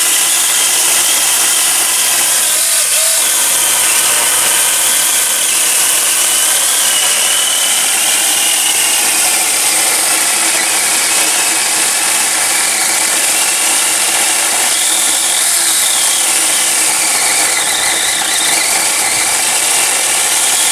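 Small handheld electric chainsaw running continuously as it cuts through a cherry tree branch, its motor and chain whine wavering in pitch.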